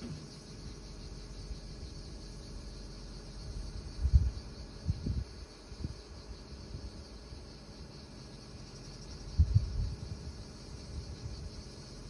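Liebherr PR 746 crawler dozer's diesel engine running steadily, with a few low thuds about a third of the way in and again near three quarters in, over a steady high chirring.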